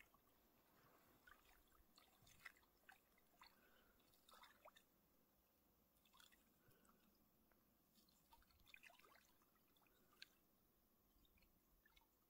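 Near silence, with faint scattered drips and small trickles of water.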